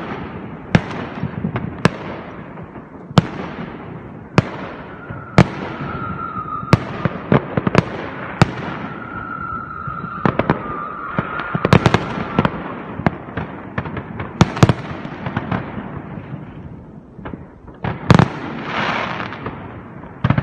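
Fireworks going off: a string of loud, irregular bangs from aerial shells and firecrackers, each echoing, over constant crackle. A thin steady whistle runs through the middle, and a hissing rush comes near the end.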